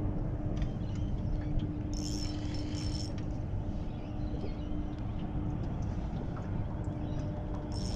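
Spinning reel's drag buzzing in two short spells, about two seconds in and again near the end, as a hooked fish takes line. Under it, a steady low rumble and a low hum.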